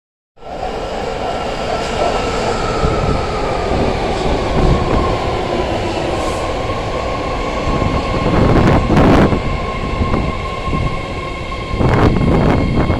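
BART Fleet of the Future train pulling into an underground station: steady rail rumble, with a whine from its IEC Holden traction motors that sinks slowly in pitch as the train slows, then holds. A few sharp knocks from the wheels come past about two thirds of the way in and again near the end.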